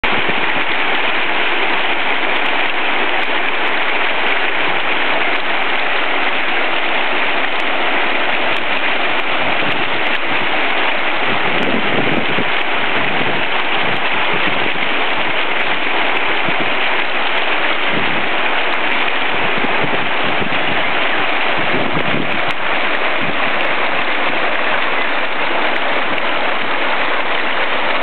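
Mountain stream rushing and splashing over boulders: a steady, loud hiss of white water.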